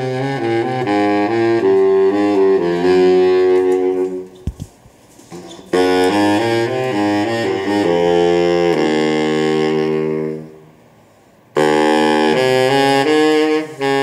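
Saxophone ensemble playing slow, held chords in three phrases, each broken off by a pause of a second or so.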